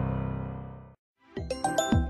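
Phone ringtone music: a held, pulsing chord fades away in the first second, then after a brief silence a new bright, bell-like ringtone melody starts with quick struck notes.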